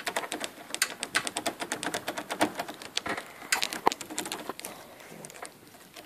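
Key being worked back and forth in a VW Passat B5 door lock cylinder: rapid, irregular metallic clicking and rattling as the cylinder, loosened by its Torx screw, is wiggled out of the door handle. The clicking thins out near the end.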